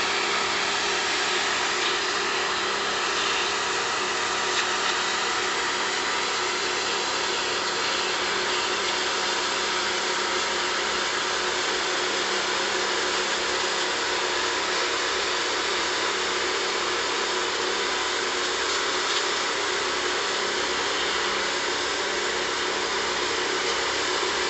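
High-pressure washer running steadily: a steady hiss of the water jet blasting moss and algae off concrete paving tiles over the hum of the washer's pump motor.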